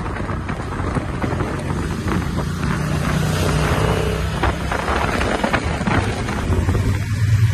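Motorcycle engines running at road speed, with wind rushing over the microphone; the low engine hum grows stronger near the end.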